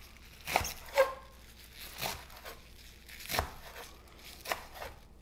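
Knife chopping collard greens on a wooden cutting board: a series of irregular knocks as the blade strikes the board, about one or two a second.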